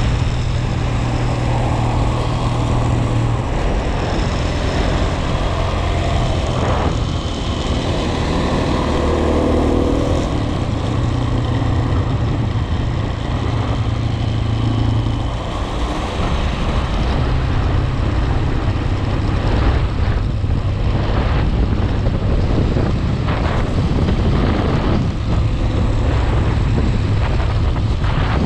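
A motor vehicle running while it drives, a steady low engine hum over road and wind noise.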